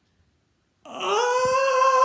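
A woman's voice acting out the wind-up of a sneeze: after a moment's pause, a long drawn-out 'ahhh', rising slightly and then held. This is the 'ah-' of an 'ah-choo'.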